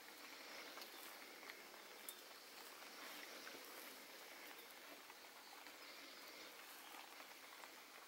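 Near silence: a faint steady hiss of background with a few soft ticks and rustles as fingers pick at the leaves and twigs of a small potted satsuki azalea bonsai.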